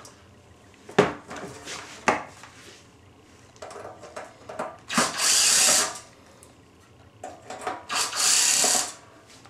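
Cordless drill backing screws out of a battery charger's metal case: two short runs of about a second each, roughly three seconds apart. A couple of sharp knocks come before the first run.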